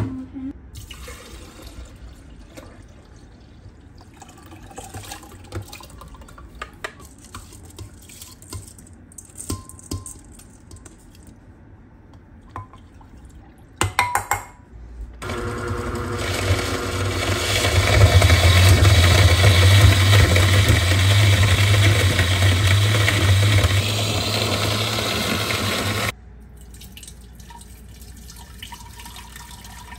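Countertop blender running for about ten seconds, blending soaked rice, water and sugar into horchata; its motor hum steps louder a few seconds in, then cuts off. Before it, faint clinks and sloshing in the bowl; after it, the liquid pouring through a mesh strainer into a glass jar.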